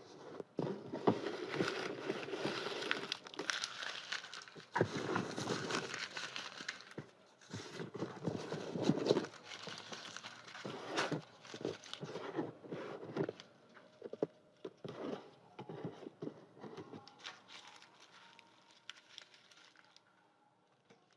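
Paper being handled, rustling and crinkling in busy bursts that thin out into scattered small rustles and clicks for the last several seconds.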